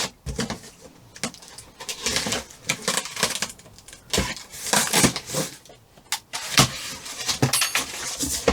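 Cardboard box being opened and its packaging handled: irregular rustling, scraping and a few sharp knocks.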